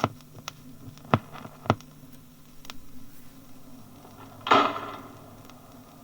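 Surface noise of an old BBC sound-archive disc with no train audible: a low steady hum with a few sharp clicks, then a louder short crackle about four and a half seconds in.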